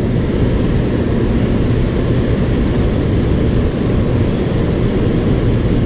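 Steady, loud roar of river water pouring through the open spillway gates of a dam and churning below them, deep and rumbling.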